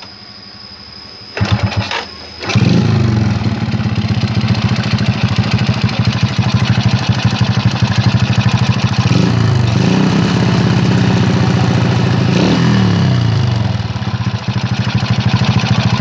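Yamaha Jupiter Z's four-stroke single-cylinder engine starting after a short first burst about two seconds in, then idling with a couple of throttle blips. It runs rough with a ticking 'letek-letek' knock, a symptom the uploader's tags link to a scored piston or worn piston rings.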